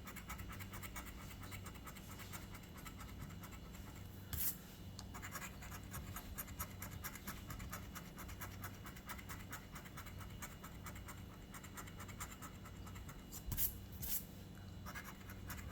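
Scratch-off lottery ticket being scratched: rapid, steady scraping strokes across the card's coating, with a few louder scrapes about four seconds in and near the end.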